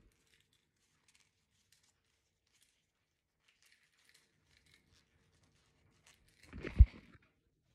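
Quiet room with faint scattered clicks, then a short thump and rustle near the end as the phone recording is handled.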